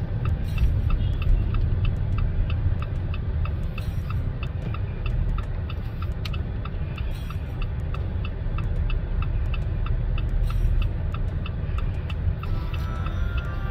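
Turn-signal indicator of a Jeep Compass ticking steadily, about two to three ticks a second, set for a left turn. Under it, a low rumble of engine and road noise inside the moving car's cabin.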